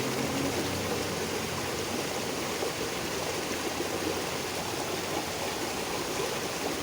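Flowing stream water, a steady rushing hiss.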